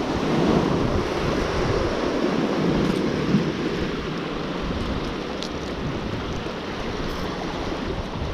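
Sea surf washing against rocks in a steady rush, a little louder in the first few seconds, with wind buffeting the microphone.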